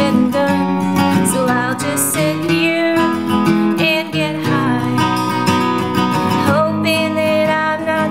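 A woman singing a slow melody over a 1968 Gibson SJ acoustic guitar playing chords.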